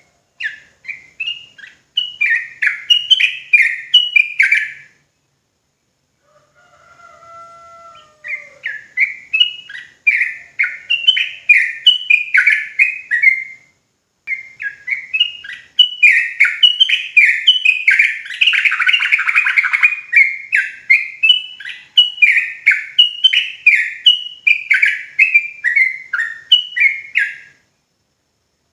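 Yellow-vented bulbul (trucukan) singing its rapid 'ropel' song: long runs of short, chirpy, downward-slurred notes, about three a second. The song breaks off twice, and one run turns denser and harsher midway.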